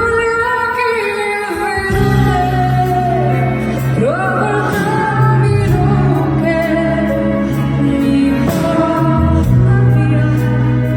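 Female vocalist singing a slow ballad live, holding long notes with a sliding rise about four seconds in, over band accompaniment with a steady bass line.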